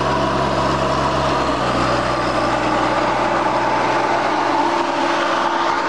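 Tractor engine running steadily while driving a Tifone Vento air-blast electrostatic sprayer with a 28-inch fan, which blows a dense, even rush of air carrying the spray mist through the orchard rows. A steady whine sits over the noise throughout.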